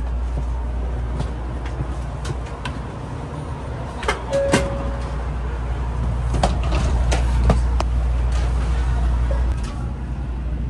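Steady low rumble inside a Shinkansen passenger car, with scattered light clicks and knocks and a brief tone about four seconds in.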